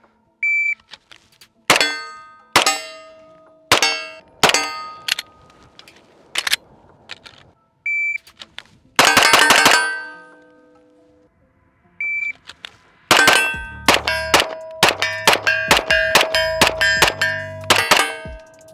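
Three short shot-timer beeps, each followed by a string of 9mm shots from a Smith & Wesson M&P9 2.0 pistol, every shot ringing on with a metallic clang. About five spaced shots follow the first beep, a quick burst follows the second, and a long fast run of shots follows the third.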